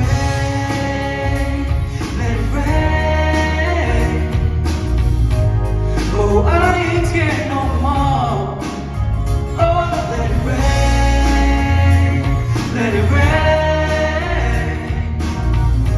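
Male voices singing a pop song live over band accompaniment with a heavy bass line.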